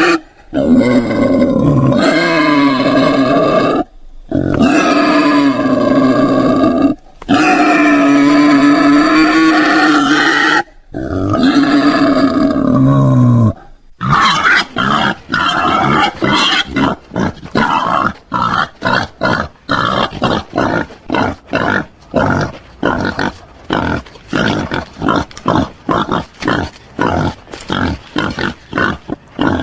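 Wild boar calling. First come long, drawn-out pitched calls that rise and fall, cut apart by sudden short silences. About halfway through, these give way to a fast series of short grunts, two or three a second.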